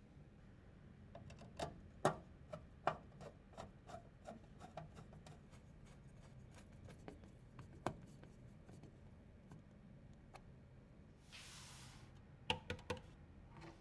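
Light clicks and taps of small hardware parts being handled and fitted during a PC build. Near the end there is a short rasping rustle, then three quick clicks.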